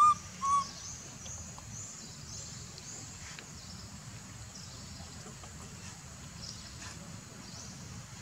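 Baby macaque giving two short high coo calls in the first second. After them, faint high chirps carry on in the background.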